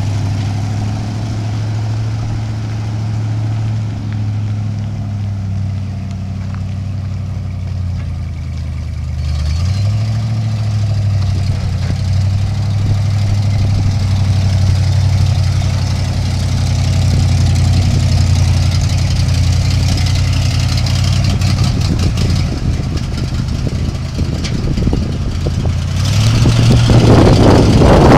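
1976 Ford F600 medium-duty truck's engine running steadily while the truck drives slowly around, its pitch dipping and rising briefly about ten seconds in. A louder rushing noise comes up near the end.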